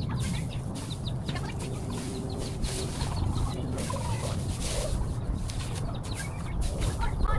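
Chickens clucking in short, scattered calls over a steady low rumble.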